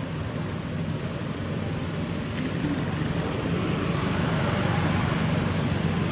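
Steady outdoor background noise: a constant high-pitched hiss over a low rumble, with no distinct events.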